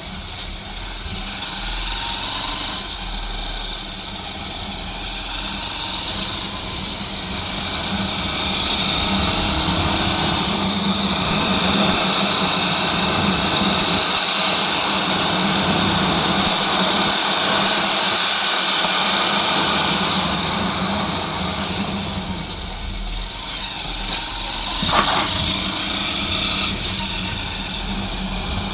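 Honda XR 250 Tornado's single-cylinder engine running while riding at road speed, with wind rushing over the microphone. It grows louder through the middle stretch and eases off again, with one sharp click about 25 seconds in.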